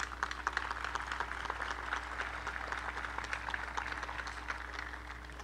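Crowd applauding, the clapping thinning out toward the end.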